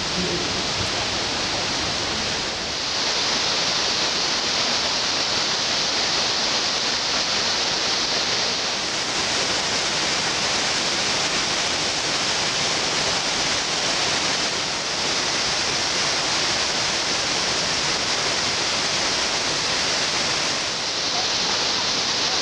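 Jōren Falls, a waterfall about 25 m high, plunging into its pool: a steady, loud rush of falling water with a hiss-heavy top end, dipping slightly a couple of times.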